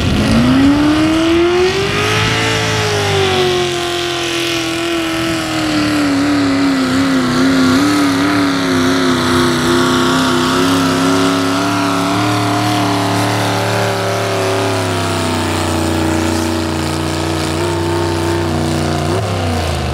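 A Ford pickup's engine running flat out as it pulls a weight-transfer sled down a dirt track. The revs climb over the first couple of seconds, then sag slowly as the sled's load builds and hold there. They fall away sharply just before the end as the pull finishes.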